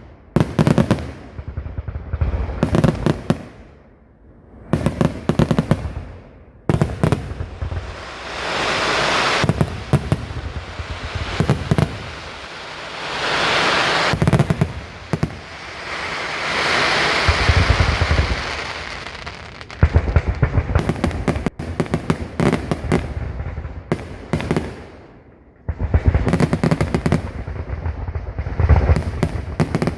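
Aerial fireworks going off in rapid volleys of booms, with three longer swells of crackling that build and fade over two to three seconds each.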